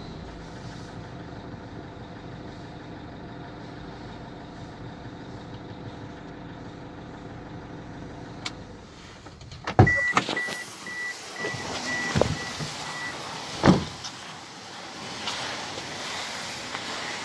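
Toyota Innova engine idling steadily as the revs settle. About ten seconds in, a sharp click is followed by a rapid beeping chime for about three seconds, with a few thumps as the car door is opened and shut.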